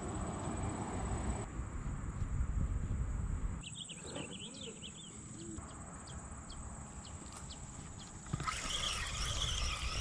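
Spinning reel being cranked as line is wound in, under a low rumble of wind and handling noise. A bird chirps in a quick run of calls about four seconds in.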